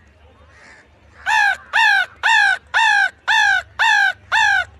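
A man imitating a crow's caw: a quick run of seven evenly spaced caws, about two a second, each falling in pitch, beginning about a second in.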